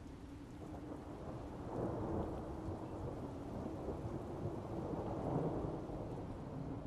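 Rolling thunder rumbling over steady rain in a stormy soundscape, swelling about two seconds in and again near five and a half seconds.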